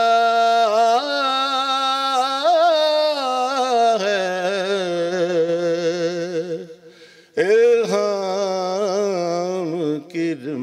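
A man singing Urdu devotional verse unaccompanied, drawing out long held notes with a wavering, ornamented pitch. He breaks off briefly about seven seconds in, then starts a fresh phrase.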